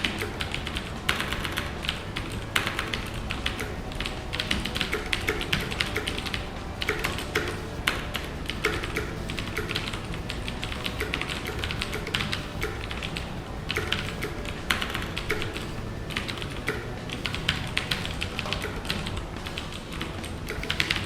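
Fast typing on a Cooler Master QuickFire Rapid mechanical keyboard with Cherry MX Blue switches: a dense, uneven stream of clicky keystrokes with brief pauses.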